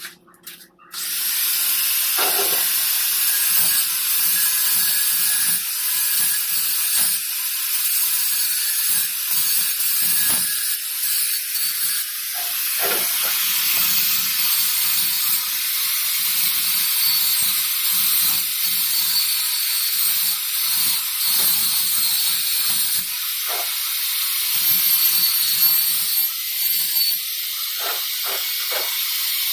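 Shielded metal arc (stick) welding arc crackling and hissing steadily, starting about a second in, with a few short knocks: tack-welding the carbon steel pipe joint.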